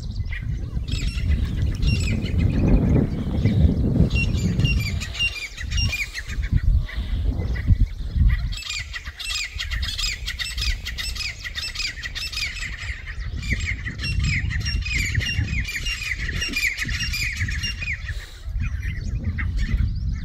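Francolins (titar) calling in a dense run of rapid, repeated squawks, a territorial clash between a resident group and an intruding flock. The calls start about a second in and stop shortly before the end, over a low rumble that is heaviest in the first half.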